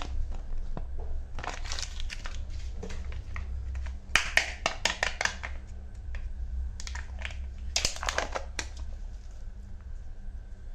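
Crinkling and rustling of Kinder Joy packaging, the plastic wrapper, paper toy leaflet and foil seal, as the eggs are handled and opened. The crinkling comes in irregular bursts, loudest about four seconds in and again near eight seconds.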